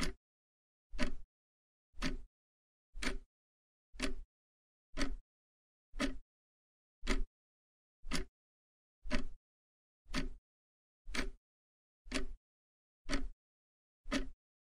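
Countdown timer sound effect: a short beat with a deep thump once every second, about fifteen in a row, with dead silence between them.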